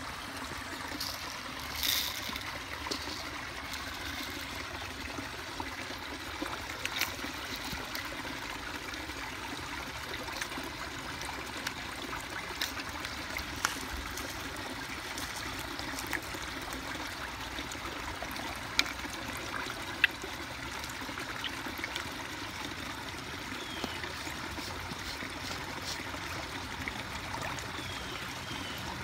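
Steady trickle of water running into a garden fish pond, with a few sharp clicks scattered through it, the loudest two a little after halfway.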